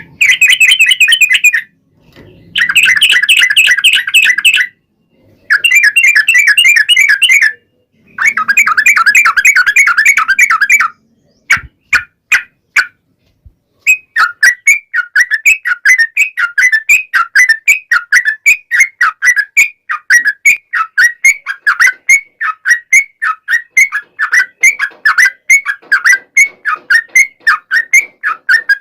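Yellow-vented bulbul (trucukan) song: long bursts of rapid, dense chattering in the first half, cut by short gaps, then a few clicks and, from about halfway, a long run of short falling notes repeated two or three times a second.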